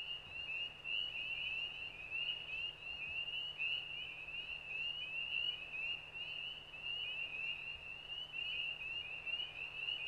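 Chorus of calling frogs: many short rising peeps overlapping in a continuous high-pitched trill, with a low steady hum underneath.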